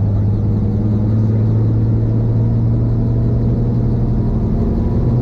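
A small helicopter's engine and rotors running, heard from inside the cabin: a loud, steady low hum that rises slightly in pitch about a second in and again near the end.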